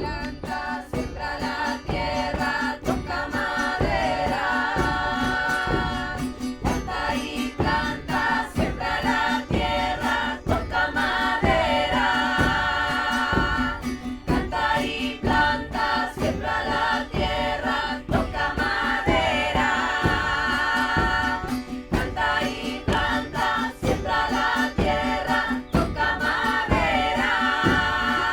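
Music: voices singing together over a steady drone, with a regular drum beat.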